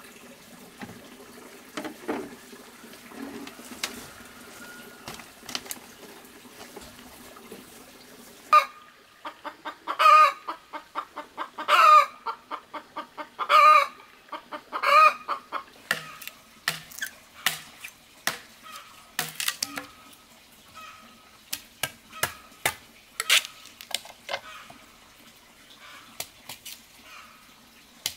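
Water pouring from a plastic watering can onto garden soil for the first eight seconds or so. Then chickens calling: four loud calls about a second and a half apart, followed by softer clucking among sharp knocks and taps.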